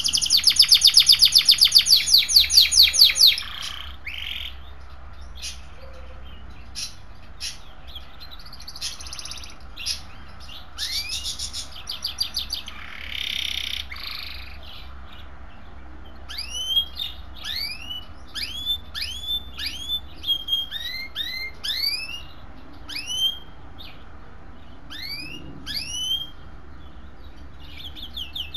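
A canary and a sparrow singing and calling. A loud, rapid, high trill fills the first three seconds, followed by quieter scattered notes and, from about halfway on, a series of short rising chirps.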